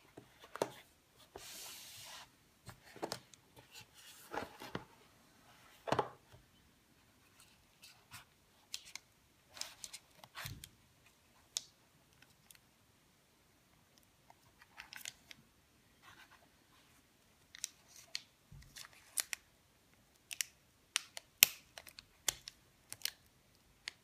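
Cardboard gift box and its packaging handled with cloth-gloved hands: a short sliding rub as the lid comes off about a second and a half in, then scattered light scrapes, taps and clicks of card and plastic.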